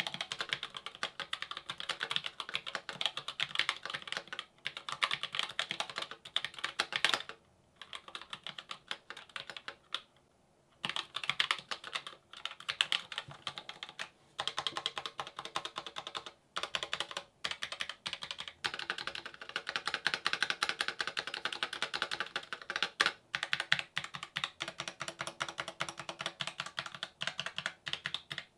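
Typing on an Asus ROG Strix Scope RX TKL Wireless Deluxe keyboard with red RX optical mechanical switches: a fast, continuous run of key presses, with short pauses about seven and ten seconds in.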